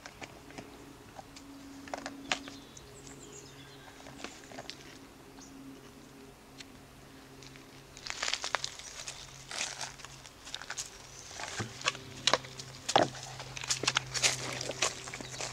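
A dog playing with a small plastic pot, knocking and rustling it: scattered clicks and light knocks, few at first and coming thick and louder from about halfway. A steady low hum lies underneath.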